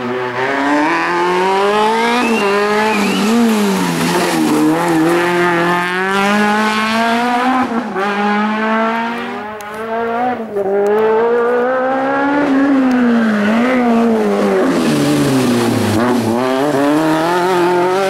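Peugeot 309 GTi 16v rally car's 16-valve four-cylinder engine driven hard. The revs climb and fall again and again as the driver changes gear and lifts off for corners. It is loud and close throughout, with a brief dip about ten seconds in.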